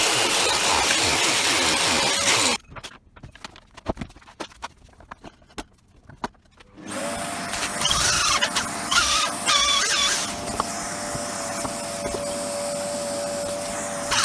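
Treadmill-motor disc sander running with a steady whine, cut off abruptly about two and a half seconds in. A few seconds of quiet with light clicks and knocks follow, then it runs again, with wavering high squeals for a couple of seconds before it settles back to a steady whine.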